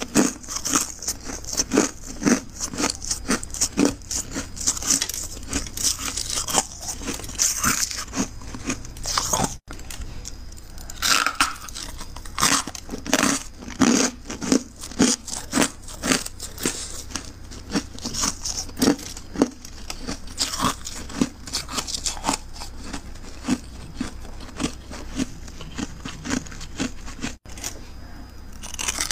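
Close, dense crunching of powdery freezer frost and ice, many crisp crunches a second with no let-up.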